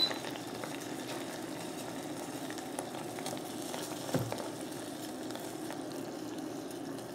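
Sugar syrup boiling hard in a stainless steel saucepan, a steady bubbling fizz, cooked to the hard-crack stage. There is a short click at the very start and a soft knock about four seconds in.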